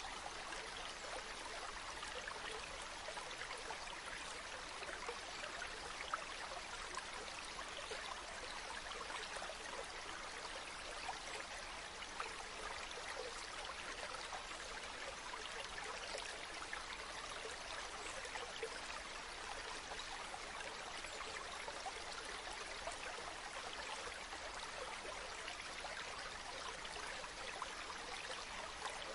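A mountain stream running over rocks: a steady rush of water with small splashes and trickles throughout.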